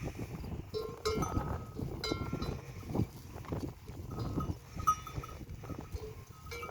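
Camels feeding, with small bells on the animals clinking several times over low rustling and crunching.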